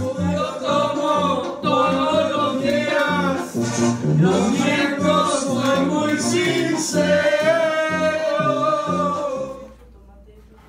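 Background music: a Spanish-language Latin song with a sung vocal over a rhythmic bass line, fading out near the end.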